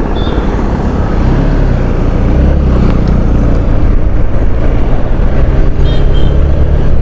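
Motorcycle engine running steadily while riding, heard from on the bike with road noise and passing traffic.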